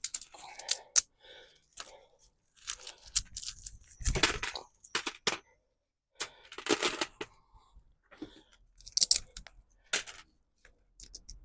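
Loose coins clinking and clattering as steel coins are pulled out of a pile of copper coins with a strong fishing magnet, with sharp irregular clicks as coins snap onto the magnet and are pulled off it.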